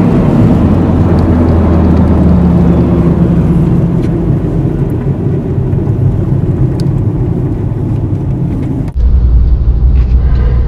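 Car engine and tyre noise heard from inside the cabin while driving on a snowy road, a steady low rumble. About nine seconds in it cuts abruptly to a heavier, deeper rumble.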